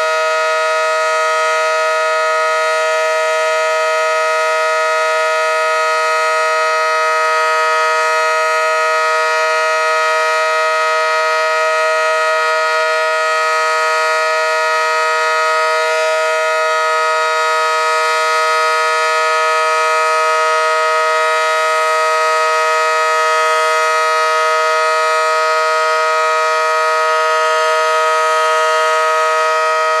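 Federal Signal Model 5T outdoor warning siren sounding a loud, steady tone at full pitch, without rising or falling. This is the steady Alert signal of a monthly warning-siren test.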